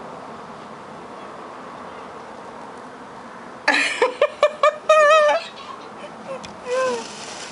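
A young child's high-pitched squeals: a quick string of short cries about four seconds in, ending in a wavering one, then another short cry near the end.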